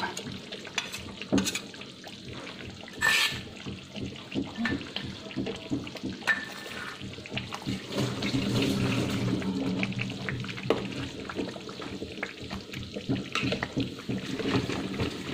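Thick rendang sauce of coconut milk and spices bubbling and spluttering in a metal pan. A spoon stirs it, scraping and knocking irregularly against the pan.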